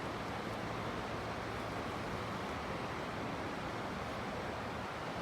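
Creek water rushing steadily over a trout stream, an even, unbroken hiss.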